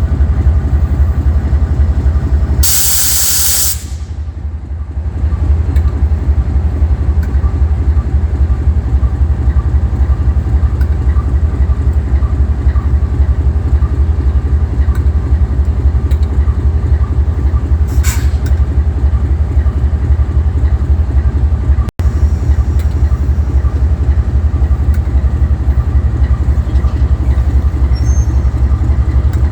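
Diesel-electric locomotive engine idling with a steady, rhythmic low drone. About three seconds in, a loud blast of compressed air hisses for about a second, and a brief hiss comes again later.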